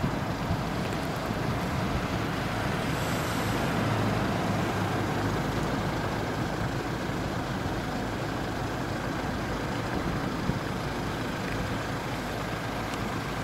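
Steady rumble of road traffic, swelling slightly about four seconds in.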